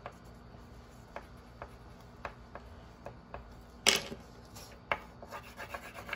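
Marker drawing on paper laid on a wooden table: a few short, light taps and scratches as small marks are made. One louder knock about four seconds in.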